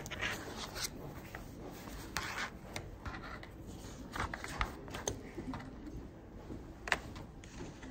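Pen writing on paper and hands moving over a spiral notebook on a desk: short scratchy strokes and rustles, with a few light taps, the sharpest near the end.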